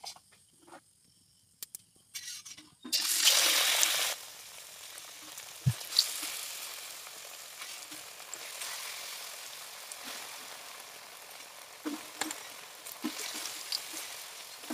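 Batter-coated potato fritters frying in hot oil in a wok. A loud burst of sizzling about three seconds in as a battered piece goes into the oil settles into a steady frying sizzle, with the odd clink of a spoon against a steel bowl.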